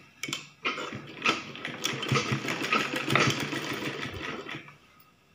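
Sewing machine stitching through fabric: two short bursts of stitching, then about four seconds of steady running before it stops.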